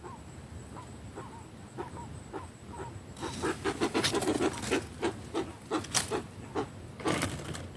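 A jacu (guan) calling: a string of short repeated calls, faint at first, becoming louder and quicker from about three seconds in, about three or four a second.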